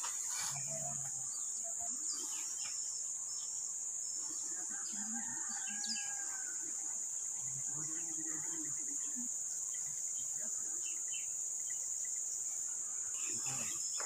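Steady high-pitched drone of insects in tropical forest, with faint scattered bird chirps over it.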